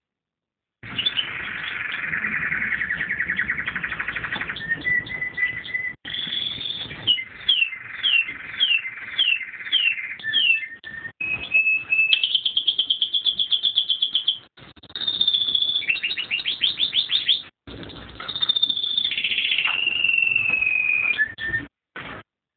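Domestic canary song: a long, continuous run of rapid trills, quickly repeated down-slurred notes and held high whistles, beginning about a second in.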